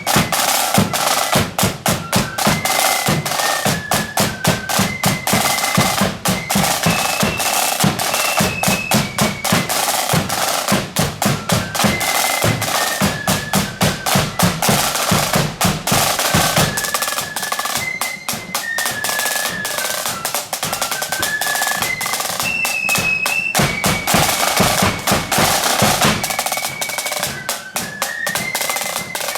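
Marching flute band playing a tune: a high melody line over rapid snare drum rolls and bass drum beats.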